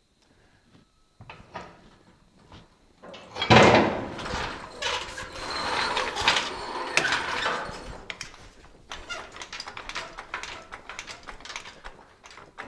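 Hydraulic floor jack being let down under a car and pulled back across a concrete floor. A loud clunk comes about three and a half seconds in, then a few seconds of clattering and scraping, then lighter rattles and clicks as the jack rolls.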